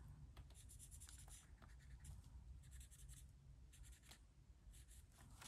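Faint, quick scratchy strokes of a pink pen colouring in on a paper insert, in irregular runs.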